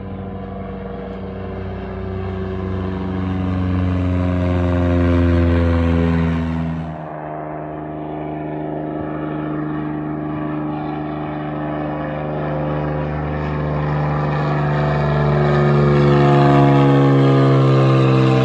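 Single-engine propeller airplane flying low overhead, its engine and propeller drone falling in pitch as it passes. The sound cuts off abruptly about a third of the way in, and a second overflight follows, building to its loudest near the end and again falling in pitch.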